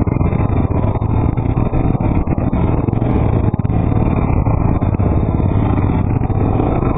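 Honda 400EX ATV's single-cylinder four-stroke engine running steadily at a low trail pace, heard close up from a camera mounted on the quad, with frequent small knocks and rattles from the rough ground.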